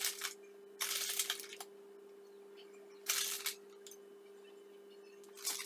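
Whole almonds clicking and rattling in four short bursts as they are picked up by hand and set on top of the desserts.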